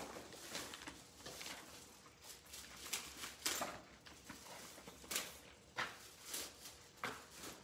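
Faint, irregular rustles and soft taps of paper envelopes and magazines being handled, stuffed and laid on stacks, about eight or nine separate strokes.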